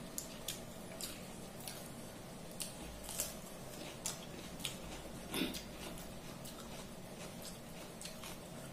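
Eating by hand: scattered small wet clicks and squishes of fingers mixing rice with fish curry on a steel plate, along with chewing, the loudest one about five seconds in, over a faint steady hum.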